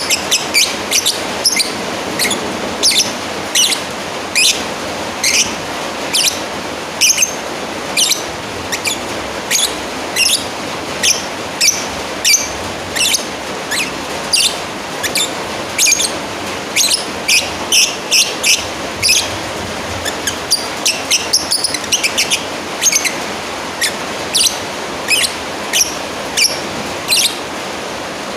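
Lovebird giving shrill, sharp chirps in a quick series, about two a second, over a steady background hiss. This is the challenge call of a bird calling out to a rival.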